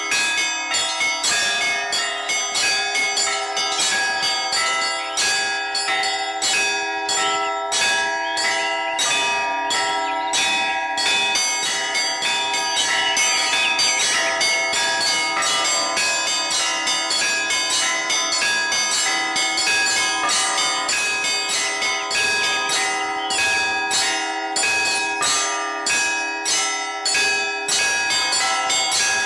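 Orthodox church bells rung in a continuous peal: many bells of different pitches struck in quick succession, several strokes a second, their tones ringing on over one another.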